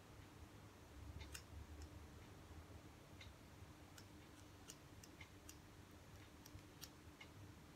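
Faint scissor snips cutting hair: about a dozen short, sharp clicks at uneven intervals over a low steady hum.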